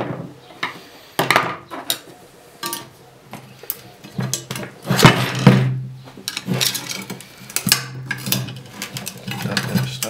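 Irregular metal clanks and knocks as the cut-open steel shell of a refrigerator compressor is handled and pried apart on a workbench, with the loudest clatter about halfway through.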